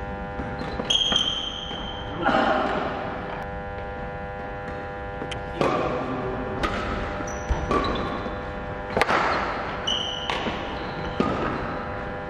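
Badminton rally: sharp racket strikes on the shuttlecock about once a second through the second half, with a couple of short high squeaks, over a steady electrical hum.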